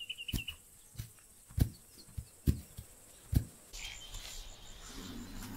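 Kangaroo hopping: dull thuds of its feet striking the ground, roughly one a second. A short chirping trill at the start, and from about four seconds in an outdoor bird ambience with faint calls.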